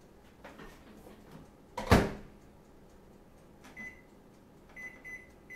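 Microwave oven door shut with a loud clunk, then keypad beeps as the cooking time is set: one beep, and about three quick beeps near the end.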